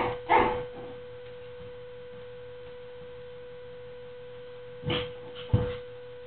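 Pomeranian puppies making a few short sounds as they play, one in the first half-second and two brief ones about five seconds in, the second sharp. A steady hum runs underneath.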